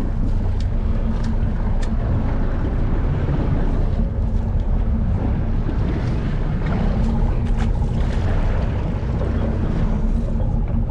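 Boat engine running steadily with a constant low hum, under wind buffeting the microphone and water noise, with a few faint clicks.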